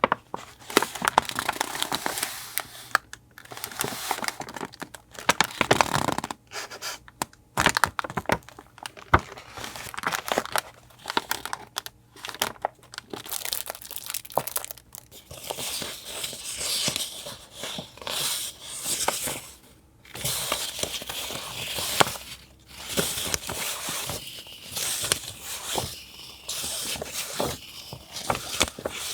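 Paper being handled at close range: irregular crinkling and rustling with bits of tearing, dotted with many small taps and clicks.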